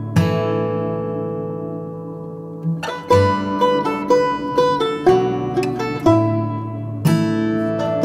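Background music of plucked acoustic string instruments, guitar and banjo: a chord rings out and fades for about two and a half seconds, then quick picked notes follow.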